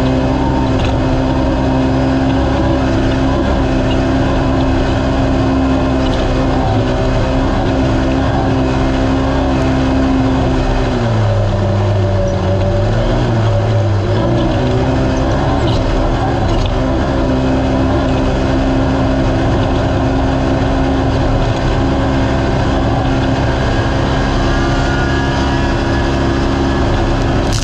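Naturally aspirated UTV race engine running at steady high revs at speed, heard onboard over constant driving noise. About eleven seconds in the revs drop, rise briefly, drop again, then climb back to a steady pitch.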